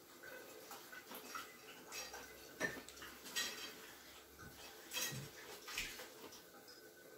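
Fried chicken being pulled apart by hand and eaten: irregular crisp crackles and clicks of crunching breading and chewing, a handful of sharper ones standing out.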